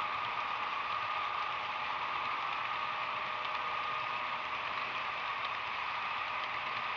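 HO scale model freight cars rolling past on the track: a steady rattling clatter of small wheels over rail joints, with a steady whine running underneath.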